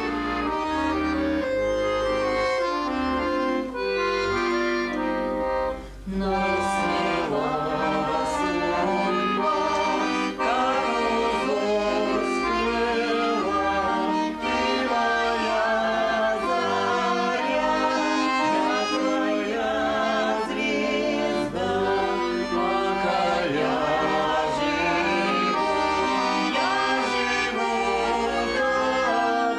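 Accordion playing a folk tune, with a brief pause about six seconds in before the playing resumes.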